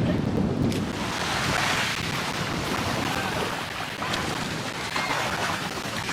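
Wind buffeting the microphone over a steady rush of moving water.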